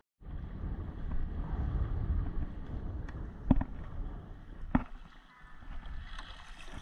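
Shallow water sloshing around a wading angler's legs with wind on the microphone, heaviest in the first few seconds, while he plays a hooked fish on rod and reel. Two sharp knocks come about three and a half and just under five seconds in.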